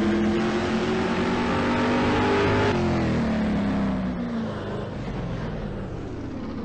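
A motor vehicle's engine running, its pitch falling slowly over several seconds as it eases off, with road noise underneath.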